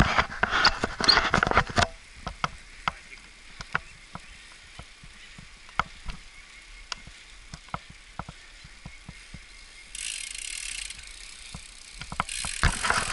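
Road bicycle riding uphill in a group: a rush of wind noise at the start, then scattered sharp clicks and ticks from the bike over a quiet background, and the wind noise rising again near the end.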